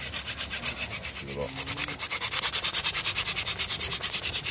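Hand-drill friction fire: a long wooden spindle spun back and forth between the palms, drilling into a wooden hearth board, making a rapid, even rubbing and scraping rhythm as the friction builds hot wood dust toward an ember.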